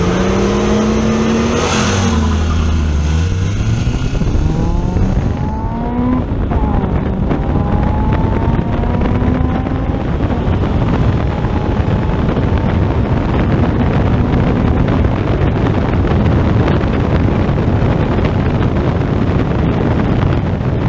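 Car engines revving at the line, then launching and accelerating hard, engine pitch climbing in several rising sweeps as the car goes up through the gears. Heavy wind buffets the microphone, growing until it covers the engine in the second half.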